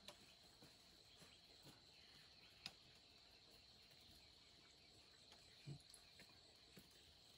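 Near silence with a faint, steady insect drone, broken by a few faint clicks and taps.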